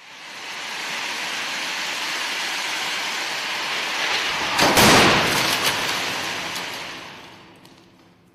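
2019 Kia Seltos in a full-width frontal crash test: a steady rushing noise as it is pulled down the test track, then one loud crash against the rigid barrier a little past halfway, the noise dying away with a few clattering bits of debris.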